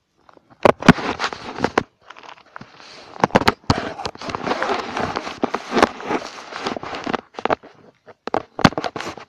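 Crackling and sharp clicks of something rubbing and knocking right at the microphone, in uneven bursts with short breaks. The loudest clicks come about a second in and again near the end.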